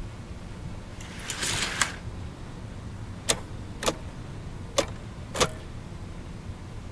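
A short rustling noise about a second in, then four sharp clicks at uneven spacing, over a low steady hum.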